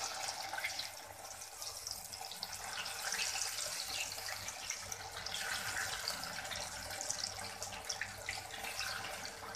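Hot oil sizzling and crackling steadily as freshly added slices of steamed aluvadi (colocasia leaf roll) deep-fry in a kadhai, the moisture in the pieces boiling off.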